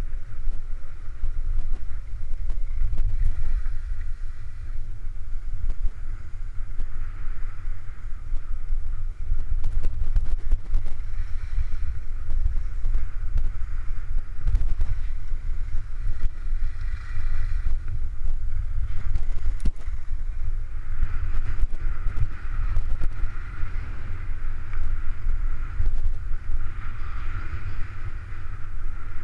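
Wind buffeting the microphone of a camera on a skier moving downhill, a heavy low rumble throughout, with a rushing hiss of skis sliding on snow that swells and fades several times.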